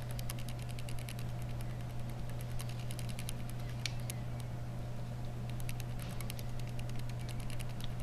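Light plastic clicks and taps from the small housing and keyboard-frame parts of a BlackBerry Curve 8520 being pried apart and handled by fingers, scattered throughout and thickest about six seconds in, over a steady low hum.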